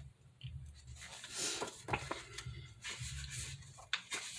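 Paper rustling and brushing as the pages of a pattern booklet are handled and turned, with a few light taps, over a low room hum.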